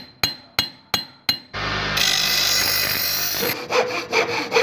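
A workshop sound montage: a quick run of hammer blows on metal, each ringing, then about two seconds of steady power-tool grinding noise, then even back-and-forth hand-sawing strokes, about three a second.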